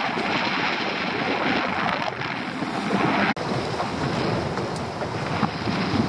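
Wind buffeting the microphone over choppy sea, with water washing against a small open boat's hull; the sound breaks for an instant just over halfway, then goes on a little quieter with a few faint clicks.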